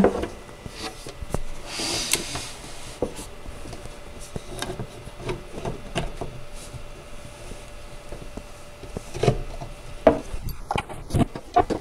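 Storage-unit panels being handled and pushed into place by hand: board rubbing against board, with scattered light knocks and taps, the louder knocks near the end.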